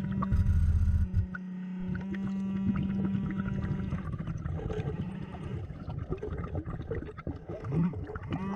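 Underwater sound of a scuba-style diver breathing from a Blu3 Nemo surface-air system: a steady low hum, a rush of exhaled bubbles through the regulator about half a second in, then wavering, gliding tones while the diver sweeps the pond bottom.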